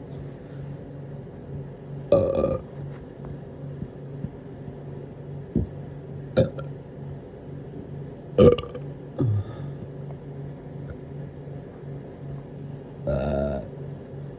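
A person burping deliberately, about six burps spread out one after another. Most are short; the loudest come about two seconds in and eight and a half seconds in, and a longer one comes near the end.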